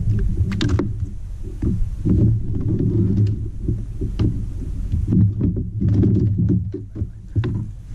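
Low, steady rumbling of wind and water against a small kayak, heard on the camera microphone. Small clicks and knocks of fishing tackle being handled on the kayak's deck come scattered through it, most of them in the second half.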